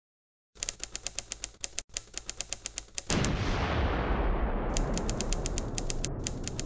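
Rapid even clicking, about eight clicks a second, like a typewriter sound effect. About three seconds in comes a sudden loud low rumbling hit that slowly dies away, with the clicking starting again over it.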